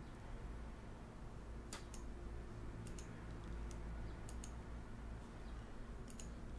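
Scattered sharp clicks of a computer mouse and keyboard, a dozen or so, several in quick pairs, over a faint steady low hum.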